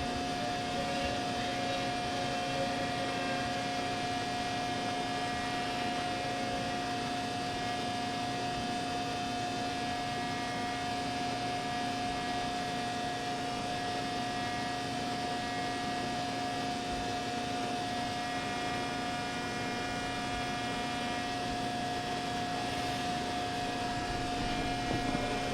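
Steady factory machinery hum: an unchanging drone of several held pitches, one mid-pitched tone the strongest, over a light hiss.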